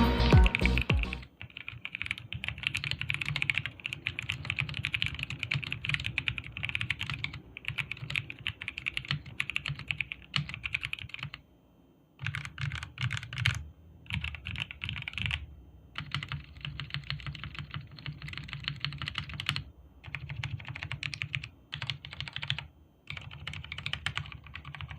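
Typing on a Zifriend AG68 65% mechanical keyboard with tactile Zifriend Brown switches and EVA plate foam. The key clicks come in fast runs of a few seconds, with two short breaks.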